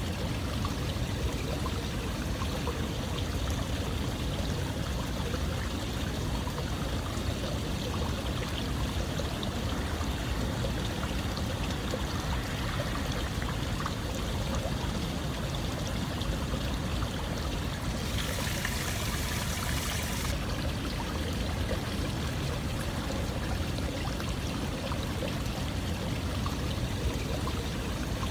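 Running water flowing steadily, a continuous stream-like rush and trickle. About two-thirds of the way through, a brighter hiss rises over it for a couple of seconds.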